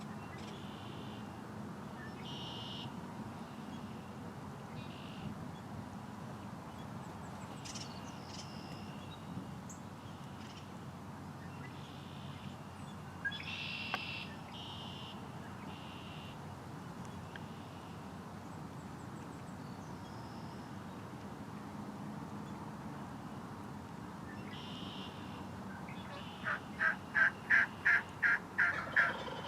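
Spring woods with songbirds calling here and there over a steady background hush; near the end comes a loud run of about eight evenly spaced turkey yelps.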